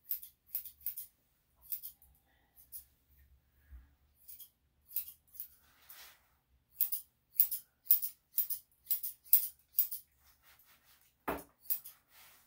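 Steel grooming shears snipping through a dog's long, thick coat: a string of crisp, irregular snips that come faster, about two a second, in the second half.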